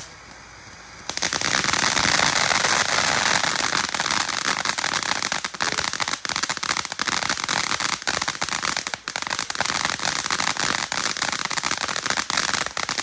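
Moby Dick fountain firework from Fire Hawk Fireworks burning. After a quieter first second it breaks into dense, rapid crackling that keeps going steadily.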